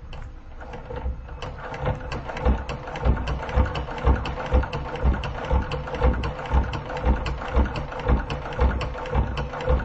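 Seiko TE-6B industrial sewing machine stitching leather at a slow, even pace: the needle mechanism knocks about twice a second over the steady hum of its motor, the stitching starting about a second and a half in.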